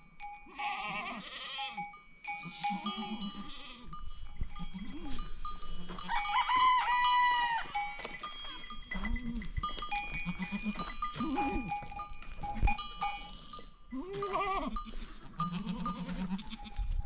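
Sheep and goats bleating over and over, many separate calls overlapping, with livestock bells ringing.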